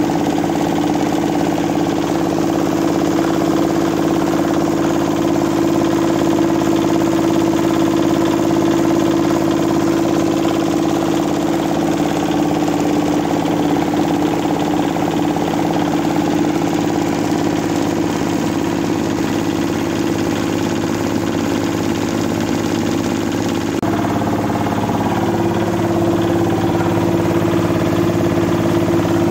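Old 8 hp diesel engine driving a small rice mill, running steadily with the mill's machinery in a constant hum. The hum shifts slightly in pitch near the end.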